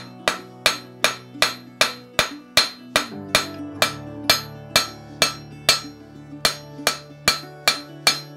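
Blacksmith's hammer striking hot iron on the anvil in a steady rhythm of about two and a half blows a second, each blow with a short ring, as the end of a strap hinge is forged flat. Quiet instrumental music runs underneath.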